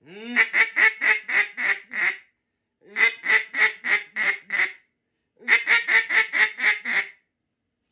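Acrylic Big Bore mallard duck call blown by mouth, giving three strings of about seven short quacks each, with a brief pause between strings.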